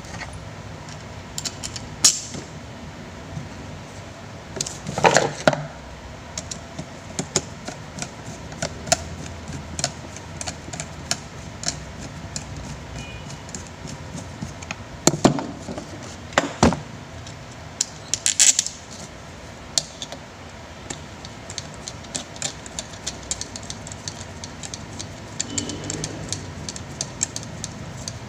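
Metal clinks, clicks and a few sharp knocks as a bare electric fan motor with its shaft and gearbox is handled and set down on a table. Near the end a screwdriver works at the gearbox screws, with a run of small rapid ticks.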